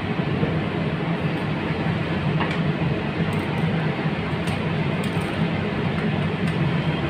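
Steady rumbling background noise with a low hum, like workshop machinery running, and a few faint light clicks as stiff insulated wires are handled.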